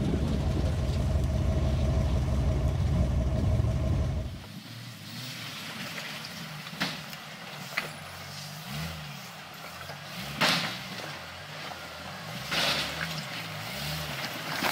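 Off-road rock crawler's engine running loud and close with wind on the microphone. After about four seconds it is heard farther off, revving up and down as the vehicle crawls over boulders, with several sharp knocks, the loudest near the middle.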